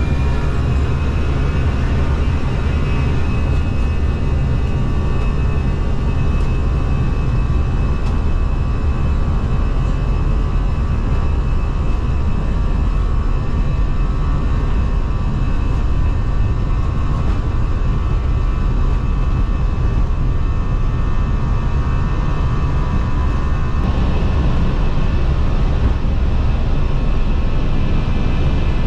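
Airbus A319's twin jet engines at takeoff thrust, heard inside the cabin: a whine that rises in pitch at the start and then holds as a steady high tone over a loud, steady rumble.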